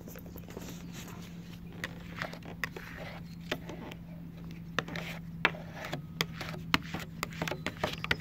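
Hard plastic tint card working window film against a car's rear glass: short, scattered scrapes and clicks as it is pushed and tapped along the edge, over a steady low hum.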